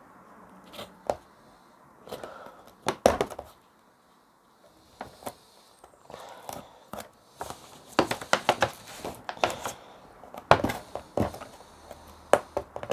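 Fingernails picking and scratching at sellotape on a cardboard box flap: irregular sharp clicks and short scratchy tearing bursts, with a cluster about three seconds in and a busier run from about eight to eleven seconds.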